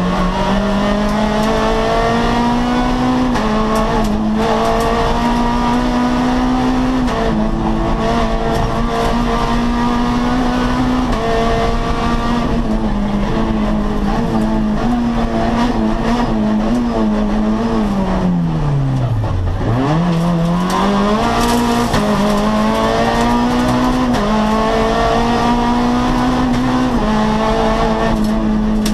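Rally car's engine heard from inside the cockpit at stage pace, the revs climbing and then dropping back at each gear change. About two-thirds of the way through the revs fall steeply to a low note and then build up again through the gears.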